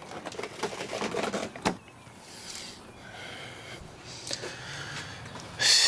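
Light clicks and rattles as a car's loose hatch panel and its broken latch are handled. There are several sharper clicks in the first two seconds and one more a little past the middle, with a quieter stretch between.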